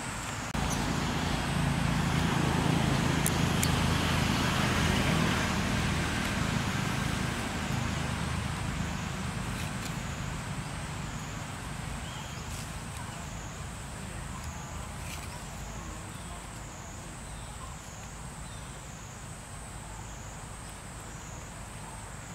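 A motor vehicle engine drones steadily at a low pitch. It comes in abruptly about half a second in, is loudest for the first several seconds, then slowly fades away. A thin high wavering whine runs underneath.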